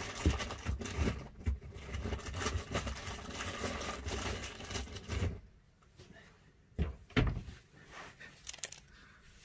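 Rustling and clicking of small items being handled for about five seconds, then much quieter, with two sharp knocks a little past the middle.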